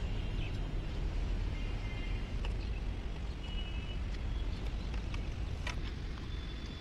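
Steady low outdoor rumble with a few faint clicks and taps from hands working at a motorcycle's side panel and seat fittings.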